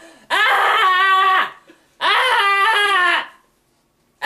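A person crying out in two drawn-out vocal wails, each about a second long, the second starting about two seconds in.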